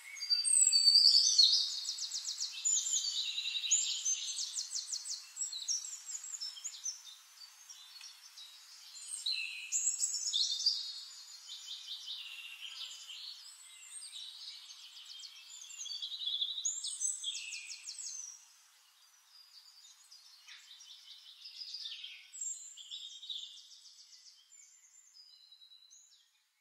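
A songbird singing: repeated phrases of rapid, high trills and chirps, each a second or two long. The song is loudest at the start and grows weaker near the end.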